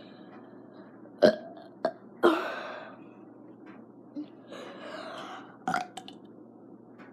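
A person's stifled burps while trying to hold them in after drinking a fizzy soda. Several short burps come through, the loudest about a second in and just after two seconds in, with a breathy stretch in the middle.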